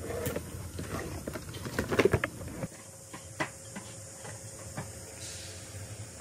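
Knocking, clicking and rustling as patterned cutting boards are picked up and handled, loudest in a cluster of knocks around two seconds in. The sound then drops abruptly to quiet room tone with a few scattered light clicks.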